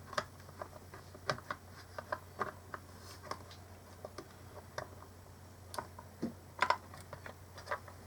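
Irregular small clicks and taps of a mini Bluetooth speaker's plastic parts being handled and pressed together during reassembly, with a few louder clicks about six and a half to seven seconds in.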